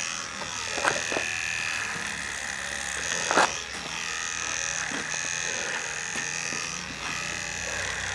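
Electric hair clipper buzzing steadily while cutting hair, running weakly in its user's words. A few sharp clicks stand out about a second in and again after three seconds.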